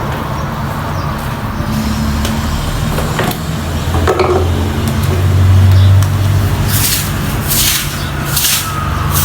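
A motor running steadily, swelling about halfway through, with three short hissing bursts near the end.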